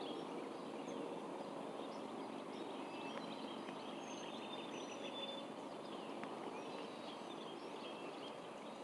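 Steady outdoor background noise with faint, short bird calls repeating throughout.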